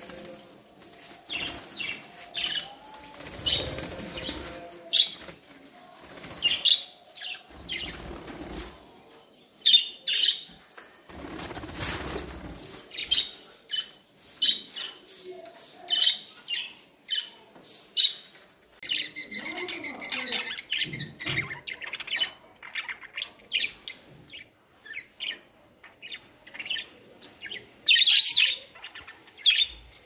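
A flock of budgerigars chirping in short, quick calls and flapping their wings. Several louder rustles and bumps from the birds being handled and the cage being moved come in the first half.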